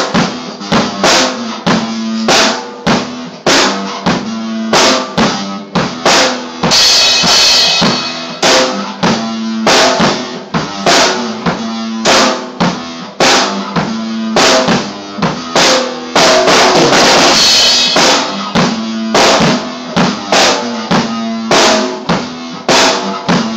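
Drum kit playing a steady beat of bass drum and snare hits over a held low pitched note, with crashing cymbal washes about seven and seventeen seconds in.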